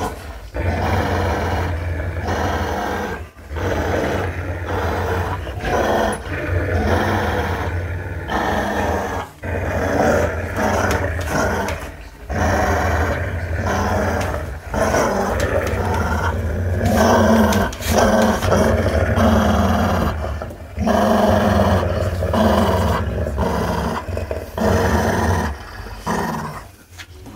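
Dog play-growling in a tug-of-war over a rope toy: a deep, continuous growl held in runs of a few seconds, broken by short pauses, dying away near the end.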